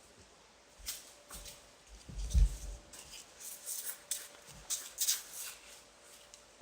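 Slime being stirred and handled in a cup with a mixing stick: irregular scrapes and clicks, with a dull thump about two seconds in.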